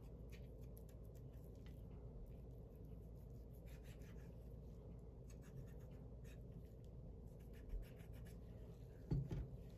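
Faint scratching and light ticks of a knife blade slicing around the joint of a raw chicken wing, with a soft knock shortly before the end.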